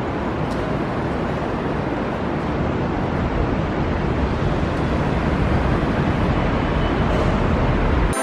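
Steady rushing road and wind noise of a car being driven, heard from inside.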